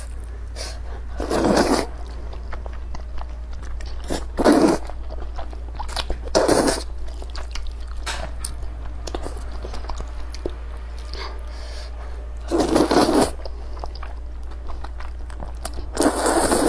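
Close-up eating sounds of a person eating sweet potato vermicelli noodles: about five loud, noisy bursts of mouth sounds a few seconds apart, over a steady low hum.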